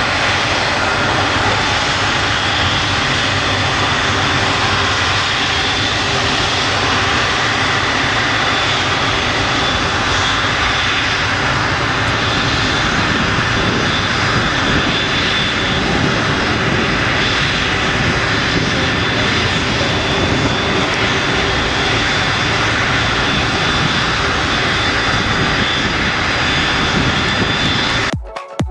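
Airbus A330 jet engines at taxi power, a steady loud rush with a thin high whine. It cuts off suddenly near the end, where music begins.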